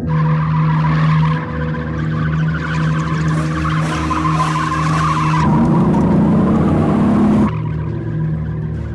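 BMW coupé drifting, its tyres squealing with the engine held at high revs. The engine note rises slightly and is loudest from about five and a half seconds in, then cuts off suddenly near the end, leaving a low steady music drone.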